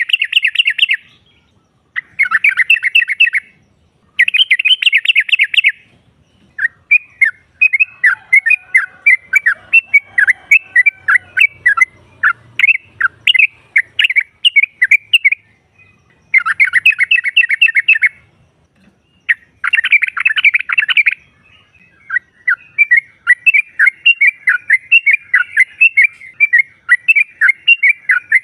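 Yellow-vented bulbul (trucukan) calls, labelled as a female calling to males: short dense bursts of rapid chattering notes separated by brief gaps, alternating with longer runs of quick bubbly chatter.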